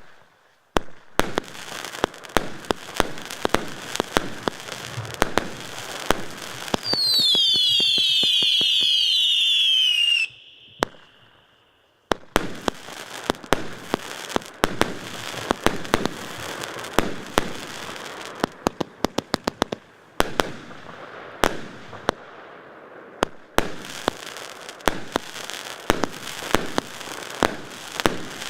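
Multi-shot firework cake going off: a rapid series of bangs with crackling between them. About seven seconds in, a cluster of whistles falls in pitch for about three seconds; after a short lull the bangs and crackle resume.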